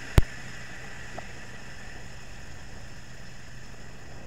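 Steam hissing steadily out of the Ninja Foodi Max's pressure release valve, opened to vent for a quick release of pressure after pressure cooking. One sharp click sounds just after the start.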